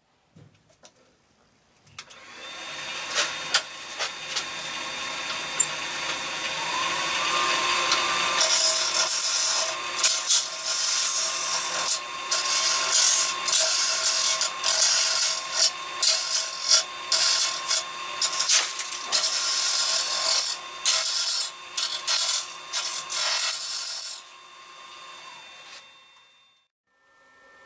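Robust wood lathe spinning a PVC pipe coupling while a turning tool cuts the plastic into long stringy shavings. The lathe starts about two seconds in; from about eight seconds the cutting is loud and breaks off many times as the tool goes in and out of the cut, stopping a few seconds before the end.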